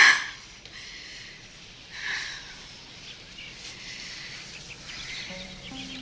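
A sharp breath at the very start. Then a faint, steady background hiss with light chirps, and soft held music notes entering about five seconds in.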